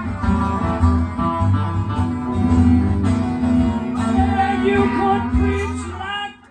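Live acoustic and electric guitar playing together, with a harmonica in a neck rack playing over them. The music drops away briefly at the very end.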